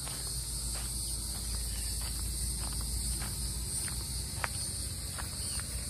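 Steady high-pitched chorus of insects, with a few faint footsteps on dirt ground as someone walks around.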